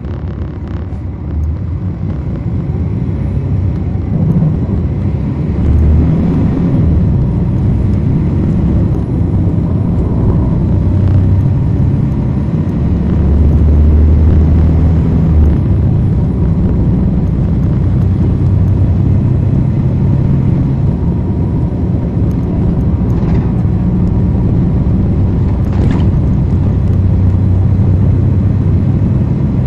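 Cummins ISL9 diesel engine of a 2010 NABI 416.15 (40-SFW) transit bus, heard from the rear of the bus as it drives under power. The deep engine drone gets louder over the first several seconds and then holds steady.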